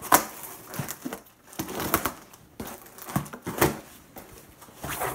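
Scissors slitting the packing tape on a cardboard shipping box, in irregular scraping strokes with crinkling of tape and cardboard. The sharpest stroke comes right at the start.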